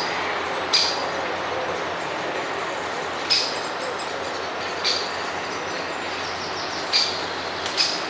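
Great spotted woodpecker giving sharp single 'kik' alarm calls, five in all at irregular intervals, at a magpie waiting near its nest. A steady rushing background noise runs underneath.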